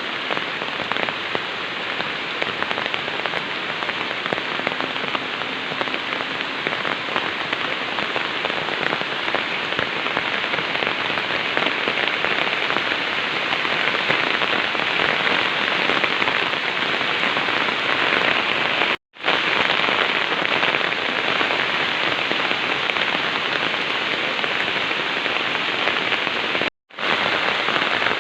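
Heavy rain pouring steadily, a dense even hiss. The sound drops out for a split second twice, about two-thirds of the way through and again near the end.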